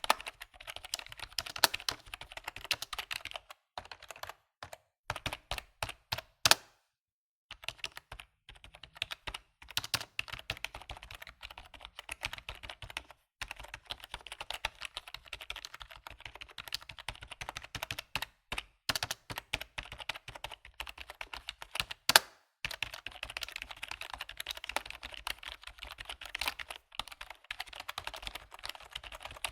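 Typing on a computer keyboard: fast runs of key clicks with short pauses between them, and a brief full stop about seven seconds in.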